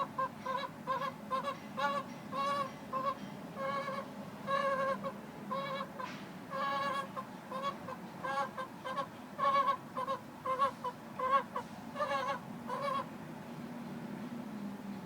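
Plymouth Rock hen giving a long run of short, repeated, whining calls, some drawn out longer, that sound like crying; they stop near the end. Her owner takes the noise for a sign of stress and does not know whether it is normal.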